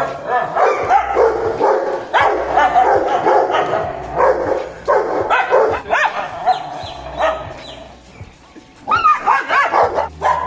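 A street dog and a Rottweiler barking at each other in a standoff, the barks coming in quick runs. There is a quieter lull about eight seconds in, then loud barking again.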